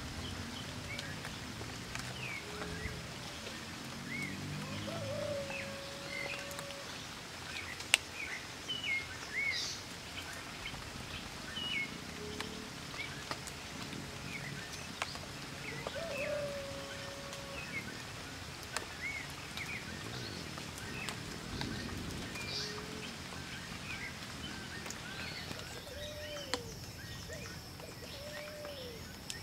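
Forest ambience full of wild animal calls: many short, high chirps throughout, with a few longer, lower whistles about five and sixteen seconds in. A single sharp click sounds about eight seconds in.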